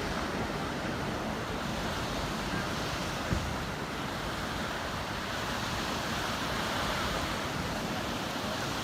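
Sea waves breaking and washing onto the shore, a steady rush of surf, with one brief low thump a little over three seconds in.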